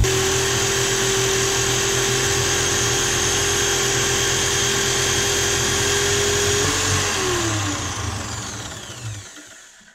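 High-speed rotary tool spinning a small wire brush wheel against the rusty steel auger of a meat grinder, a steady high whine over a scratchy wire-on-metal hiss. About seven seconds in the tool is switched off and spins down, its pitch falling as it fades out.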